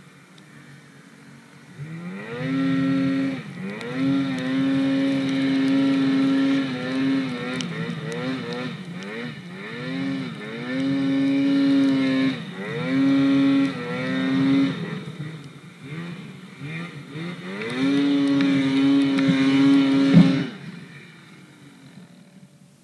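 Polaris RMK snowmobile's two-stroke engine revving in repeated rising bursts and steady pulls as the sled ploughs through deep powder. Just after twenty seconds it drops away abruptly with a sharp thump as the sled rolls onto its side on the side hill.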